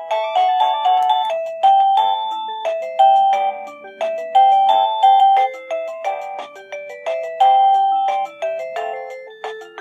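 TeckNet WA888 wireless doorbell chime playing one of its built-in electronic tunes: a quick melody of chime-like notes, each struck sharply and fading, in repeating phrases.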